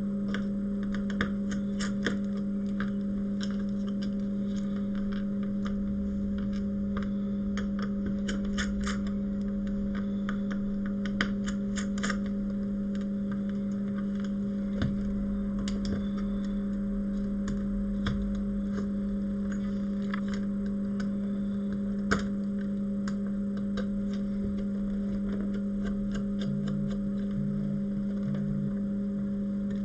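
Steady low electrical hum, with scattered faint clicks and ticks of small tools handled on the bench and a slightly sharper tick about 22 seconds in.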